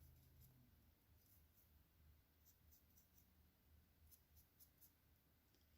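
Near silence, with faint scratchy ticks in small clusters: a dry brush loaded with red paint being brushed across a plastic miniature.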